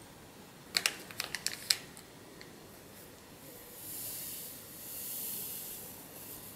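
A small foil sachet crinkling with a quick run of sharp ticks as it is opened, then dry yeast granules pouring from it into a bowl of flour with a soft hiss that swells twice.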